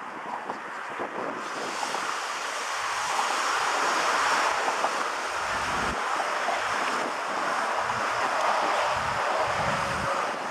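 Steady hiss of steam from the steam locomotive 18 201, swelling up about a second and a half in and then holding loud, with low rumbles now and then.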